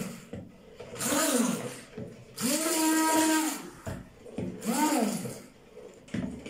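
Electric hand-held immersion blender whirring in three short pulses as it beats eggs and oil in a plastic bowl. Each pulse spins up and winds down, and the middle one runs longest at full speed.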